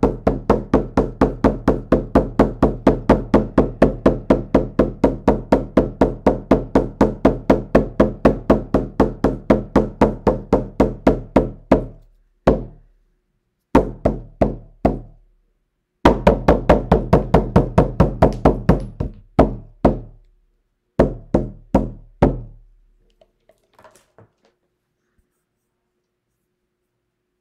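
Frame drum beaten with a beater in a steady fast rhythm of about four beats a second. About twelve seconds in the beat breaks into a few slow single strokes, a short fast run and a few last strokes, then stops: the change of beat that closes the shamanic drum journey.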